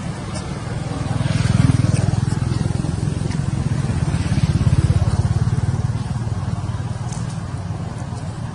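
A motor vehicle's engine running, swelling louder twice and then easing off.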